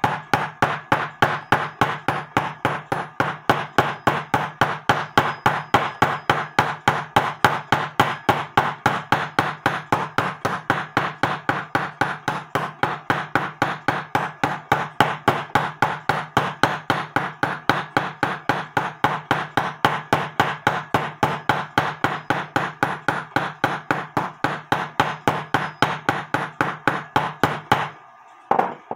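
A small hammer tapping steadily on a cut-off nail set through a Junghans clock's brass mainspring barrel, about three to four light metallic blows a second, peening the nail over to form a new catch for the mainspring. The tapping stops near the end.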